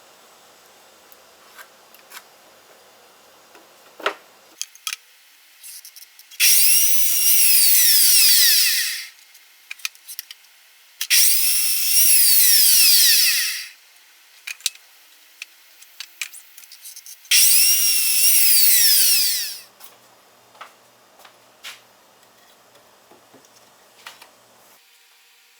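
Power drill running in three bursts of two to three seconds each, its high whine dipping and rising in pitch as it works, with small clicks and knocks between the bursts.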